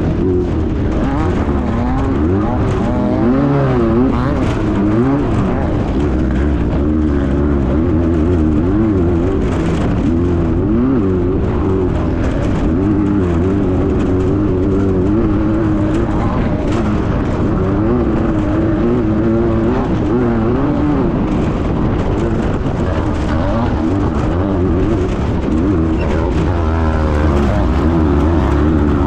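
Class 9 desert race buggy's air-cooled Volkswagen engine running hard, its pitch constantly rising and falling with the throttle, with scattered knocks from the car.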